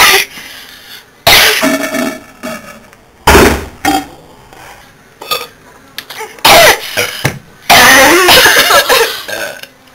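Loud burps, several in a row: one about a second long after a short pause, two quick short ones, then another, and a long drawn-out burp near the end.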